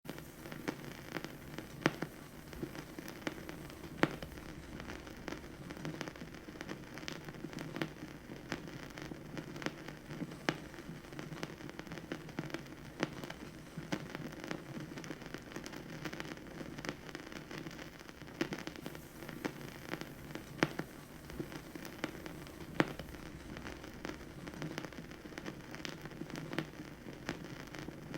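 Record-player vinyl surface noise: a steady hiss dense with small crackles, and sharper pops every few seconds.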